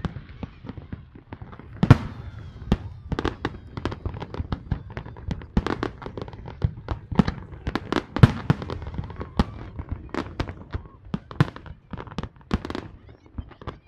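Aerial fireworks bursting in quick, irregular succession: many sharp bangs and crackles over a low, continuous rumble, with especially loud bangs about two seconds in and near the middle.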